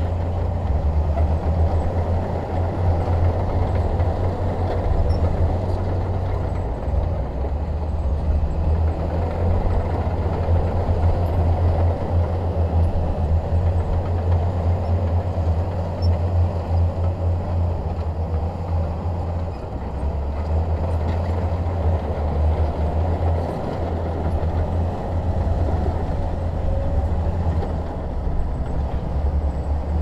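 Heavy diesel earthmoving machinery working: a steady deep engine rumble with a rougher noisy layer above it, unbroken throughout.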